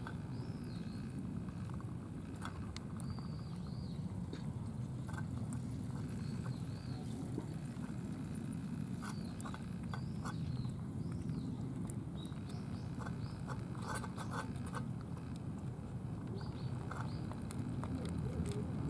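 Several cats eating wet food from plastic trays and a tin can: scattered small clicks and smacks of chewing and licking over a steady low rumble. A bird chirps now and then.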